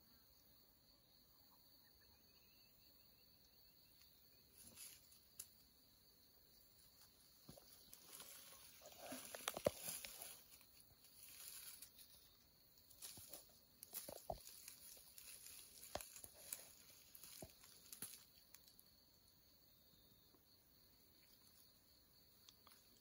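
Scattered rustling and light clicks and knocks from about four to eighteen seconds in, loudest around ten seconds, as a hunter shifts on dry leaf litter and grass, getting up to kneel with his rifle and pack. Under it is a faint steady chirring of insects.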